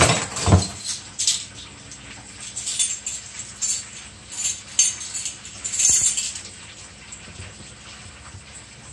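Metal measuring spoons on a ring clinking and jingling as they are handled, in scattered bright clicks over the first six seconds or so, then quieter.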